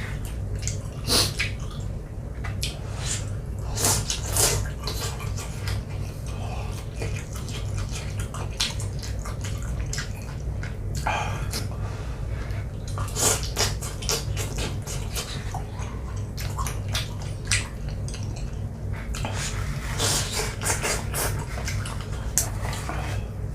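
Mukbang eating sounds: instant noodles being slurped and chewed, with irregular sharp clicks of utensils on the bowl, over a steady low hum.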